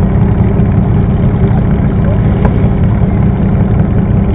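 Modified pulling garden tractor's engine idling loudly and steadily, with a rapid, even firing beat.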